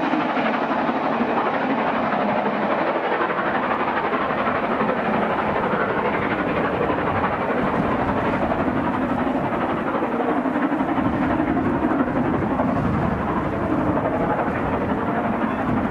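LMS Princess Royal class four-cylinder Pacific steam locomotive 6201 Princess Elizabeth working hard up a gradient with a train of coaches. Its exhaust and the running of the train make a steady, dense sound as it draws away.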